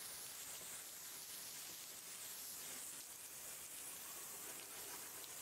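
Faint, steady hiss of background noise, with no distinct sound standing out.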